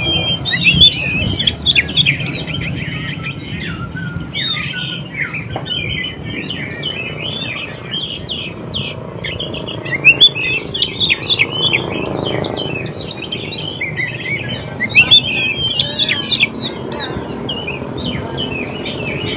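Oriental magpie-robin (kacer) singing a continuous, varied song of quick whistled and chirped notes. Three louder, higher rushes of notes come about a second in, at about ten seconds and at about fifteen seconds.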